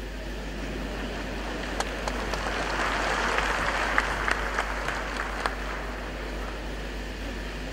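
Audience applauding, swelling to its fullest about three seconds in and then thinning out, with a few single claps standing out.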